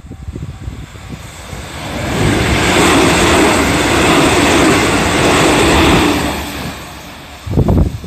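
A JR Central 313 series electric train passing close at speed: its wheels and running noise swell as it arrives, stay loud for several seconds, then fade as it moves away. A level-crossing warning bell rings faintly at the start, and irregular low thumps come near the end.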